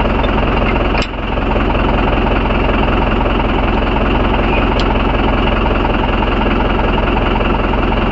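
Mahindra 415 DI tractor's four-cylinder diesel engine idling steadily and loudly.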